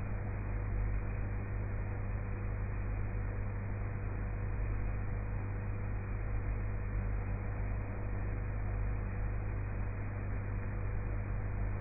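Steady low electrical hum with an even hiss and a thin constant tone above it, unchanging throughout; no rhythmic rise and fall of snoring or breathing stands out.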